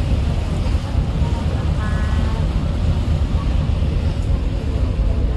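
Wind buffeting the microphone on a ferry at sea, a loud steady low rumble over the even noise of the ship and the water. A brief, faint pitched sound comes about two seconds in.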